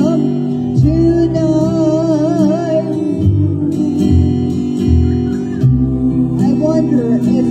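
Live music through a PA: a guitar-led backing track with a steady bass line, and a long wavering held note over it from about a second in.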